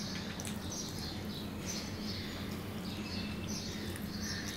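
Birds chirping over and over in the background, a short call about every half second, over a steady low electrical hum. A hand squishing and mixing rice on a steel plate adds a few faint clicks.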